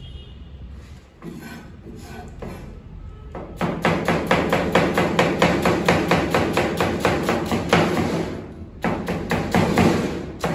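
Chef's knife rapidly chopping cabbage on a plastic cutting board: a fast, even run of knocks, about six a second, starting a few seconds in, with a brief pause near the end. A few softer knocks come first.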